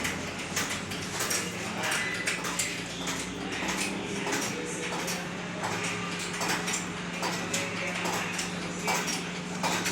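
Irregular light metallic clinks and taps of steel tools and parts during work on a pickup's leaf spring, over a steady low machine hum.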